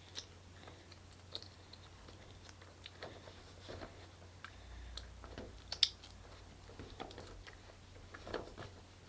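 Faint handling sounds of fingers working the stretched neck of an inflated balloon while trying to tie a knot: scattered small clicks, rubs and squeaks, with a sharper click a little before six seconds in.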